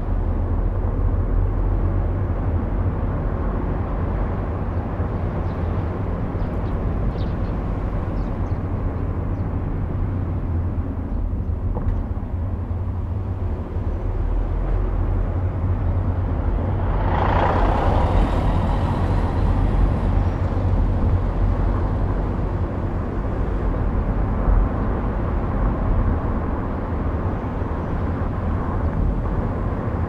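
A car driving along a road: steady low rumble of engine and tyres on the road surface. About seventeen seconds in, a louder rushing swell rises and fades over a few seconds.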